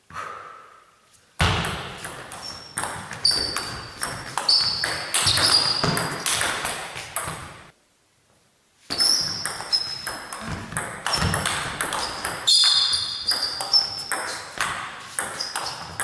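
Table tennis rally: the plastic ball clicking off the bats and table several times a second, with short high squeaks in between. It stops twice, about a second in and about eight seconds in, between rallies.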